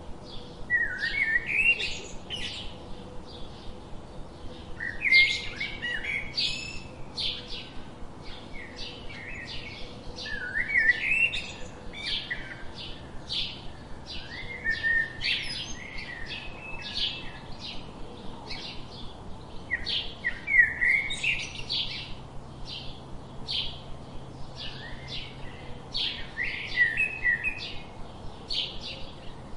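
House sparrows chirping: a steady run of short, repeated chirps, with busier bursts of chirping every few seconds.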